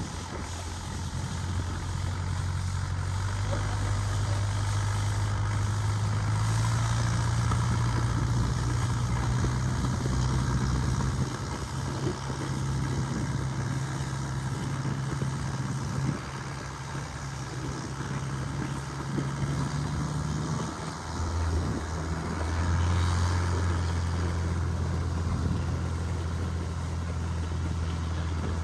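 A motorboat's engine running steadily under way. Its speed rises a few seconds in and drops back about two-thirds of the way through.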